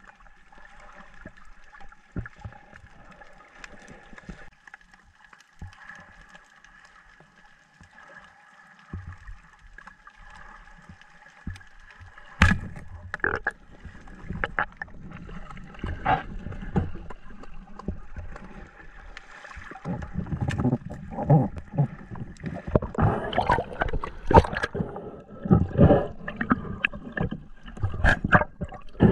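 Muffled underwater sound through a camera housing. It starts as a faint steady hum with a couple of thin tones. From about twelve seconds in come repeated knocks and clatter with low rushes of water as the diver moves and handles the speargun.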